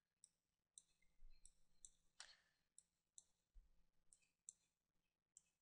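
Faint, sharp computer mouse clicks over near silence, about two a second and unevenly spaced. Each click places an anchor point of a path in GIMP.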